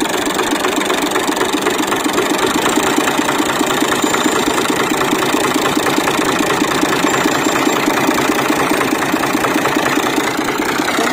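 New Holland Ghazi tractor's diesel engine running steadily with a fast, even beat as the tractor creeps forward under load.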